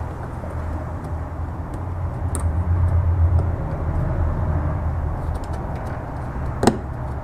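A low background rumble that swells in the middle and eases off, under light clicks of a plastic mounting clip being worked onto a car's rear bumper bracket by hand. One sharp click comes near the end.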